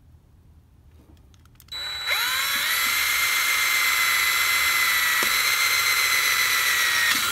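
Cordless drill starting about two seconds in, its whine rising as the motor spins up and then running steadily while it bores a hole through a rusty steel tin can. It cuts off near the end.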